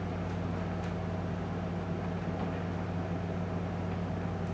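A steady low hum over a background hiss, with a few faint clicks in the first second.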